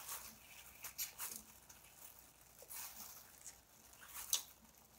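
Hard-boiled egg wrapped in a paper towel being squeezed and rolled in gloved hands, its shell cracking under the crinkling paper. Faint, scattered scratchy crackles, the sharpest near the end.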